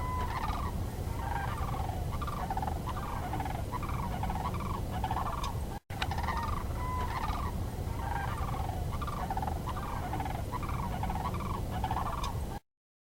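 Recorded animal calls: a run of short, repeated calls, cut off briefly midway and then played again.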